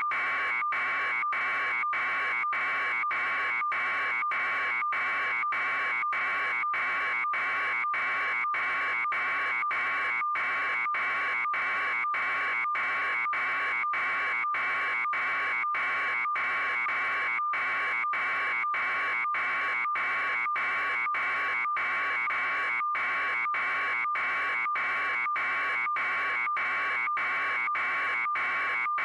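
A continuous electronic buzz with a steady pitch, interrupted by brief dropouts at a regular pace.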